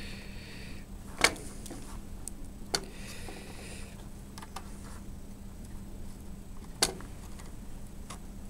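Xcelite cutters snipping the old DC jack off a laptop motherboard: three sharp snaps spread over several seconds, with a few fainter ticks between them, over a low steady hum.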